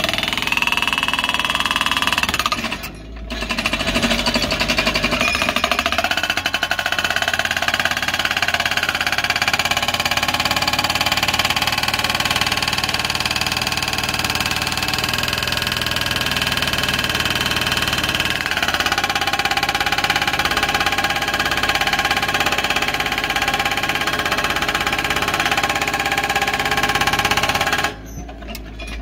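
Excavator-mounted hydraulic breaker hammering its chisel into bedrock boulders, a rapid steady chatter of blows over the excavator's engine. It stops briefly about three seconds in and again near the end.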